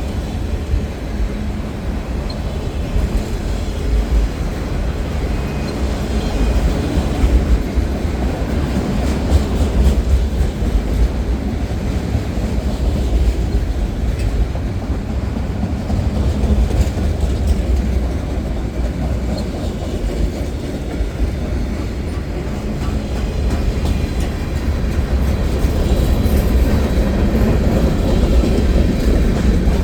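Norfolk Southern freight train rolling past: a steady low rumble of the cars and wheels on the rails, continuing without a break.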